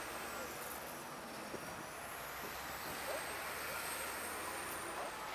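A vehicle engine running steadily, a low, even drone with a faint high whine that drifts slowly in pitch.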